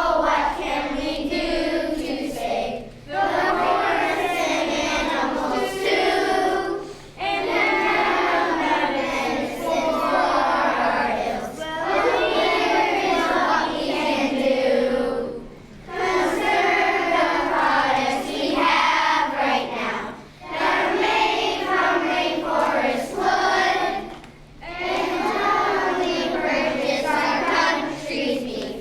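A children's choir singing in unison, in phrases of a few seconds with short breaks between them.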